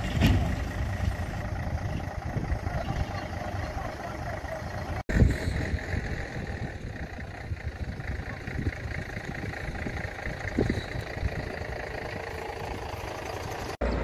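Fire truck's diesel engine idling steadily, a low rumble; the sound drops out briefly about five seconds in and again near the end.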